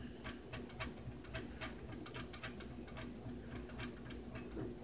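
Faint handling noise close to the microphone: irregular small clicks and rustles while hair is pulled back and tied into a ponytail.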